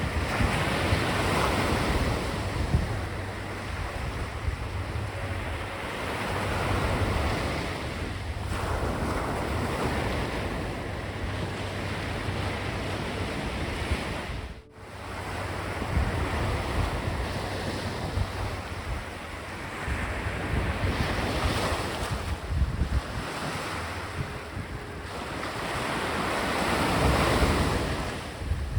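Sea waves breaking and washing up a beach, the surf swelling and falling back every few seconds, with wind rumbling on the microphone. The sound drops out for a moment about halfway through.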